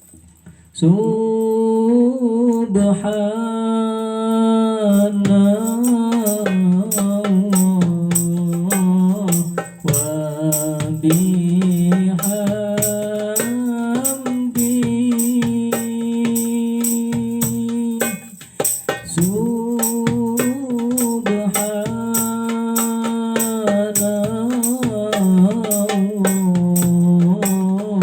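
A solo voice singing a qasidah (sholawat devotional song) in long, ornamented, wavering notes, accompanied by hand percussion keeping a steady beat. The singing starts about a second in, with a short break about two-thirds of the way through.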